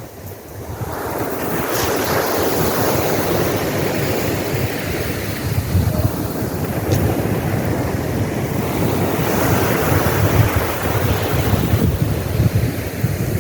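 Sea surf washing on the beach, with wind buffeting the microphone; the rush of the waves swells about a second in and stays loud.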